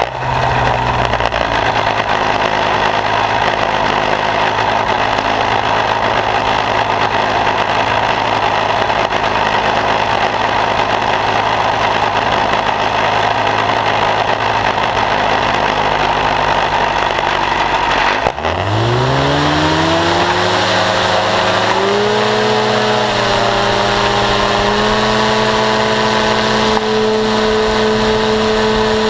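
Paramotor trike engine and propeller running steadily at low throttle. About eighteen seconds in, the pitch climbs in a few steps as the throttle is opened, then holds at a higher steady note as the trike starts its takeoff run.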